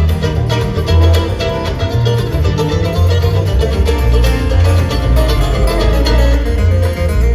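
Bluegrass band playing live, an instrumental break without singing: fast picked banjo and guitar over a steady bass line.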